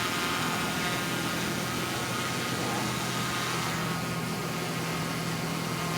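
A steady mechanical hum with a constant low drone and a fainter higher whine, unchanging throughout.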